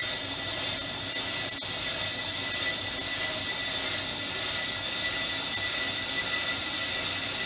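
Ammco 4100 brake lathe turning a large brake rotor while its cutting bits take a slow finishing cut under power feed: a steady high hiss with a thin steady whine.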